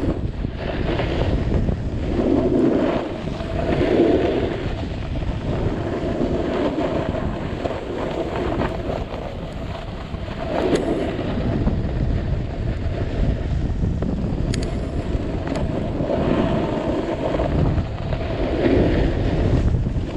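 Wind buffeting a moving camera's microphone during a downhill run on snow, with the hiss and scrape of edges on the snow swelling and easing every couple of seconds as the turns link.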